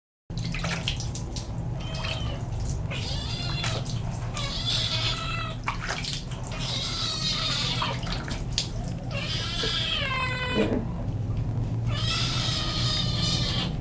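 Tabby kitten meowing again and again, in long drawn-out calls a second or two apart, as it is held and wetted in a basin of water: protest at being bathed.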